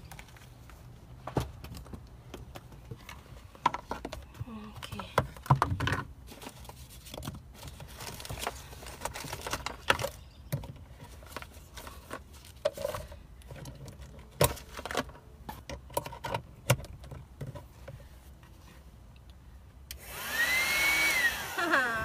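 Scattered knocks, clicks and rustles of objects being handled inside a car. About twenty seconds in, a THISWORX 12-volt handheld car vacuum switches on and runs with a steady rush of air.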